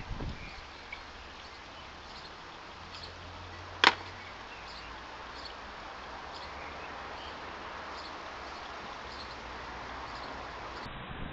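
Steady background hiss with faint, scattered high chirps and one sharp, loud click about four seconds in.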